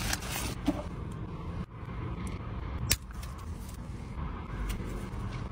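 A few sharp crinkles of a paper burger wrapper being peeled back, the loudest about three seconds in, over a steady low rumble inside a car.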